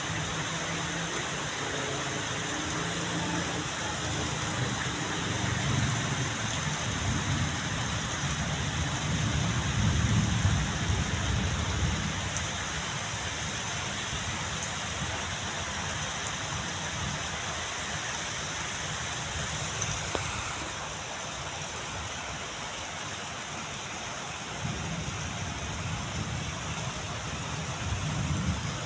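Heavy rain falling steadily, with low rumbles of thunder swelling around ten seconds in and again near the end.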